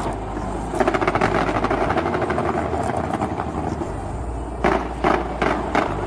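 Fireworks going off: a dense run of rapid crackling, then, from about two-thirds of the way in, a string of louder separate bangs.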